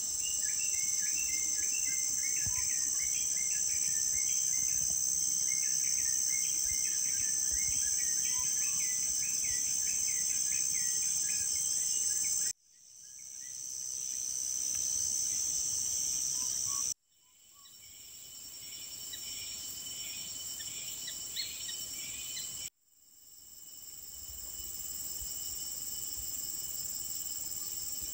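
Forest insects keep up a steady high-pitched shrill drone, with a bird chirping in quick runs of notes through the first half and again briefly later. The sound drops out abruptly three times and fades back in each time.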